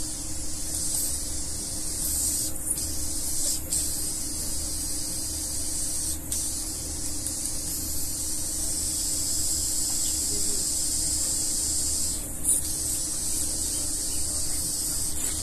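Endoscopy equipment running with a steady high hiss over a constant low hum; the hiss briefly drops out a few times.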